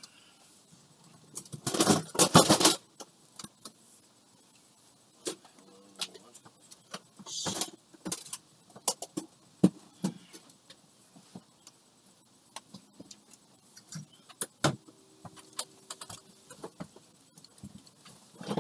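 Handling noise from small objects: scattered clicks, taps and light knocks, with a loud rough rush of noise about two seconds in and a shorter hiss near eight seconds.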